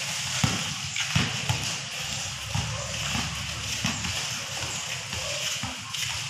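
A basketball bouncing on a concrete court, mixed with players' footsteps: a handful of sharp thuds at uneven intervals over faint voices.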